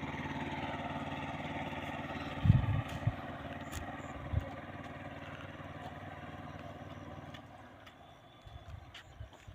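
A small engine running steadily, fading away about three-quarters of the way through, with a few dull low thumps around two and a half seconds in and again near four seconds.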